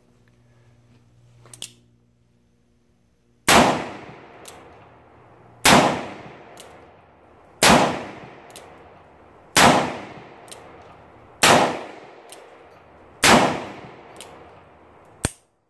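Six gunshots from a .44 Remington New Model Army (1858) cap-and-ball black-powder revolver, fired about two seconds apart and emptying all six chambers. Each shot is followed about a second later by a much fainter sharp click.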